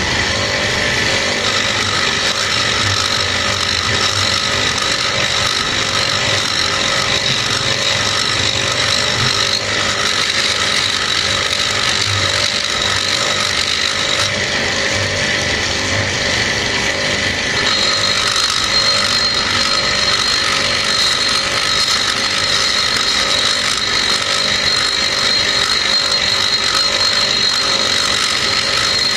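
Rotary tool with a small burr running steadily at high speed, grinding the inside of the port of an aluminium motorcycle cylinder head during porting. It gives a steady high whine, whose pitch steps up slightly a little past halfway.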